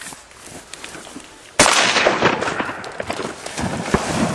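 A shotgun shot about one and a half seconds in, followed by steady splashing in the water.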